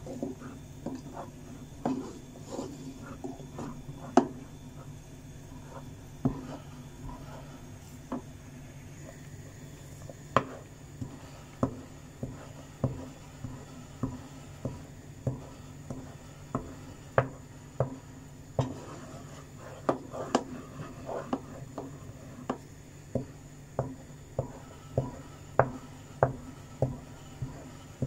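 A dal ghotni (hand masher) knocking against the bottom and sides of a cooking pot as thick haleem is churned, mashing the cooked mutton into fine shreds. The knocks are irregular at first, then settle into a steady beat of under a second apart in the last third, over a steady low hum.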